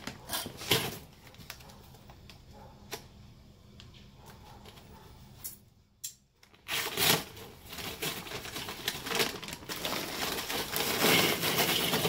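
Charcoal briquettes being handled and poured from a rustling paper bag: scattered clicks and crinkling at first, then a dense clatter of briquettes tumbling out that builds from about seven seconds in.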